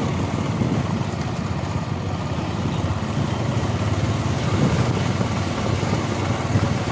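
Motorcycle engine running steadily, a constant low rumble with street noise.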